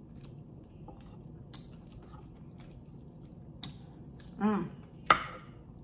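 Close-miked chewing of a mouthful of rice, beans and stewed beef: soft, wet mouth sounds with scattered clicks. A short hum of the voice comes about four and a half seconds in, followed by a sharp click.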